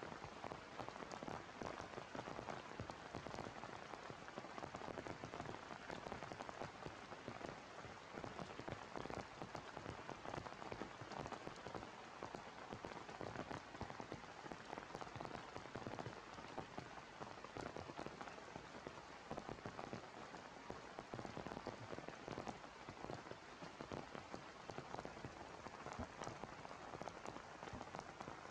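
Steady heavy rain: an even hiss with many individual drops ticking through it, unchanging throughout.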